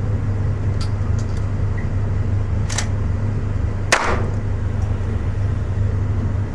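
A few sharp cracks over a steady low hum: gunshots on the range, the loudest about four seconds in with a short ringing tail.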